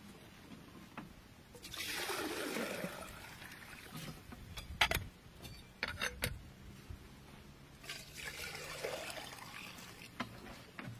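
Water poured from a plastic jerrycan, splashing and trickling in two spells, about two seconds in and again near the end, with a few sharp knocks of the plastic can being handled between them.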